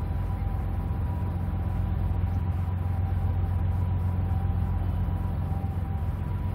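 Steady low rumble of city and harbour background noise, with two faint steady high tones over it.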